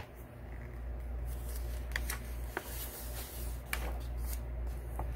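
Pages of a picture book being turned and handled by hand. Paper rustles, with a few short, soft taps about halfway through.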